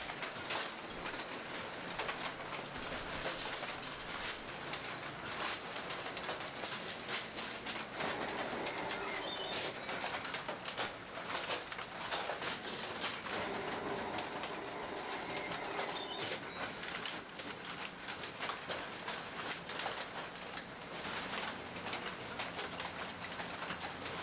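Sock boarding machine running: a steady clatter of many sharp clicks as its metal sock forms move through, with a squealing tone now and then.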